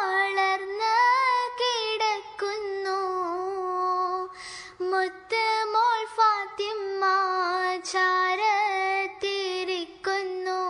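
A high, young voice singing a Malayalam devotional song about the Prophet Muhammad unaccompanied, in long ornamented phrases with wavering pitch, pausing for a breath about four and a half seconds in.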